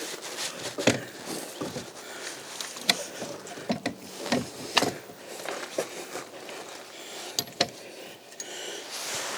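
Scattered sharp clicks and knocks of a tow-bar-mounted bike carrier being handled and secured on the hitch, a handful spread a second or two apart.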